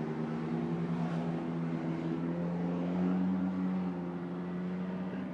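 Racing sports car engine running at steady high revs, a constant pitched drone that fades slightly about four seconds in.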